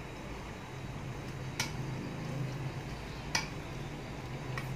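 A metal spoon mixing chicken marinade in a stainless steel bowl: three sharp clicks of the spoon against the bowl, over a steady low hum.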